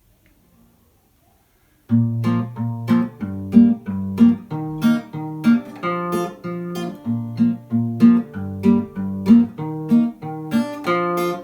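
Acoustic guitar strumming chords in a steady rhythm, starting about two seconds in after near silence.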